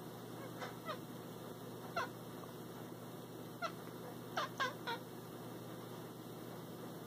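Tabby cat chirping at prey it is watching: seven short, high, falling chirps, the last three in quick succession.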